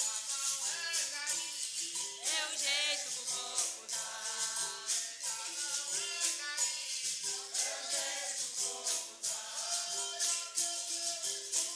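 Capoeira roda music: a berimbau's twanging notes with a caxixi shaker and a jingling pandeiro keep a steady rhythm, with voices singing over them.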